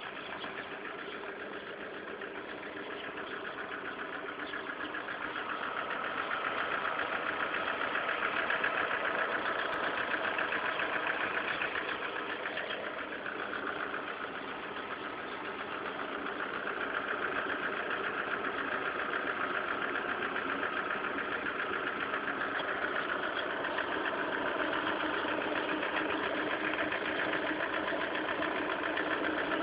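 Lada Kalina 1.4 16-valve engine running at idle with an extraneous rapid metallic clacking, a noise the owner says many of these cars share and whose cause he does not know.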